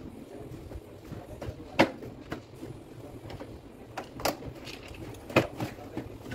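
A handful of sharp, irregular knocks and clicks of metal power-tool parts being handled on a workbench, the loudest about two seconds in and again past five seconds.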